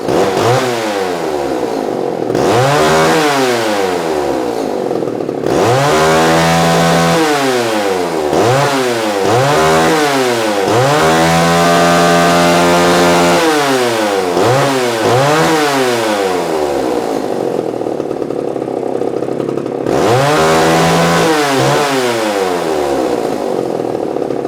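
Vintage Homelite Super XL Automatic two-stroke chainsaw running and being revved repeatedly, about a dozen quick blips of the throttle with one held at high revs for about two seconds midway, dropping back to idle in between. The saw runs and revs cleanly, showing that it starts and runs.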